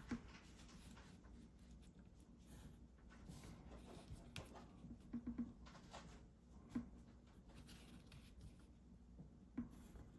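Faint scratching of drawing strokes on paper, with a few soft knocks and taps in between.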